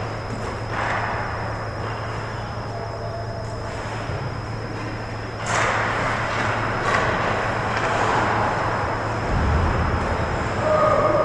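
Indoor ice rink during a hockey game: a steady low hum of the arena over a hiss of skate blades scraping the ice, which grows louder about halfway through.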